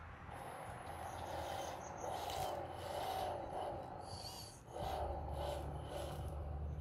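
Hydraulic system of a 1/14-scale RC wheel loader working as the bucket tilts and lifts: a brushless gear pump and valves give a wavering mechanical whir. A steady low hum joins about five seconds in.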